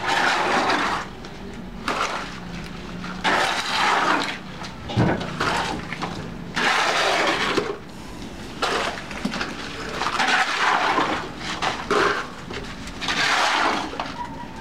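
Steel shovel scraping and scooping through wet cement mix on a concrete floor, in repeated rough, gritty strokes every second or two.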